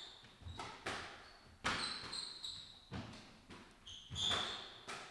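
Squash rally: sharp smacks of the ball off rackets and the court walls, ringing in the hall at uneven intervals, with players' shoes squeaking on the wooden floor.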